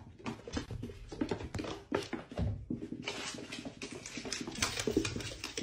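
A cat's feet pattering and scuffling on a wooden floor: a quick, irregular run of soft taps.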